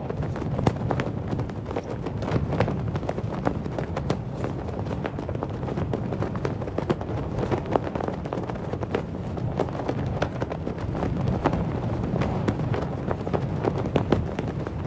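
Cloth flag flapping in the wind: irregular sharp snaps and flutters of the fabric over a steady low wind rumble.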